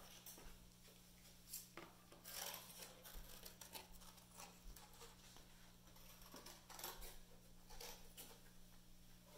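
Near silence: a low steady hum with a few faint, short scratchy sounds scattered through it.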